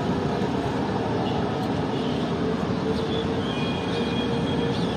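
Steady road traffic noise from a busy main road, with a vehicle's engine drone holding a steady pitch through the second half.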